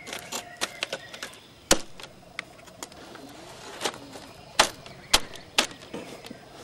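Plastic clicks and knocks from a CD-ROM drive's tray and casing as a slice of pizza is stuffed into the tray and the tray is pushed in against it. They come irregularly: a quick run of light clicks in the first second or so, then a handful of louder clacks spread through the rest.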